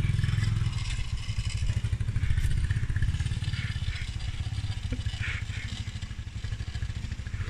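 Small quad bike's engine running as it rides off, a fast low putter that slowly fades as it moves away.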